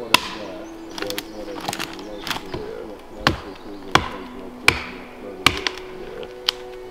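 Hatchet chopping into a pine tree: about eight sharp, irregularly spaced blows of the blade biting the wood.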